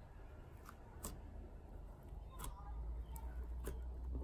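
Clay slime being pressed and folded by hand, giving a handful of sharp little clicks and pops, about five in the few seconds.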